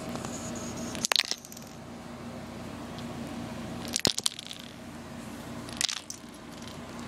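Small hard plastic Gogo's Crazy Bones figures clicking and clattering on a tiled floor, three short bursts of a few quick clicks each, about a second, four seconds and six seconds in.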